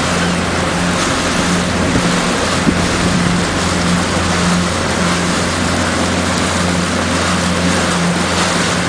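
Motorboat's engine running steadily with a low hum, under a constant hiss of wind and water.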